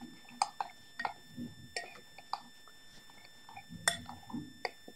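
A fork stirring a wet panko and mayonnaise mixture in a glass bowl, with soft mixing sounds and several light, irregular clinks of the fork against the glass.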